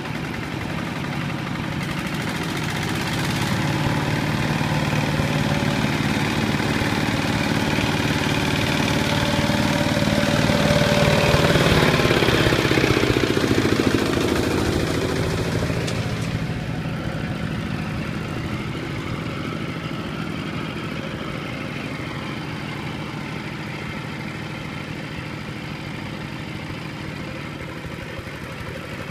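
Single-cylinder diesel engine of a Kubota RT120 two-wheel walking tractor running steadily under load while it hauls a loaded trailer through mud. It grows louder towards the middle as it passes close by, then fades as it moves away.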